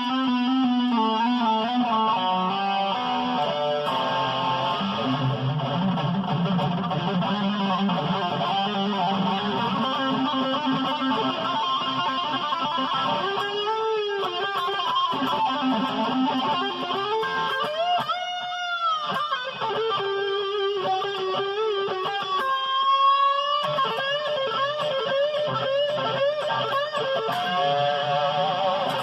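Electric guitar with EMG active pickups, played through an amplifier: a run of single notes with several swooping pitch bends that rise and fall.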